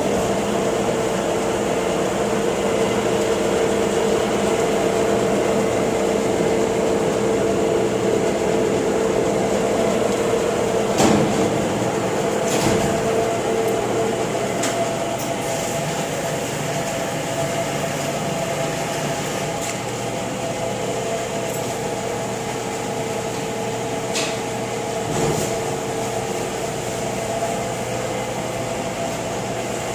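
LeBlond Regal 24" x 72" engine lathe running, a steady machine hum with a gear whine. The whine fades about halfway through and returns a few seconds later. A few sharp knocks come near the middle and again later on.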